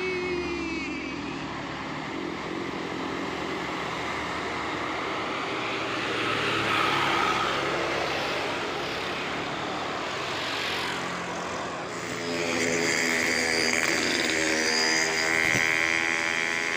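Road traffic on a climbing road: steady vehicle noise, with a heavy vehicle's engine growing louder about 12 seconds in as a steady drone of many tones.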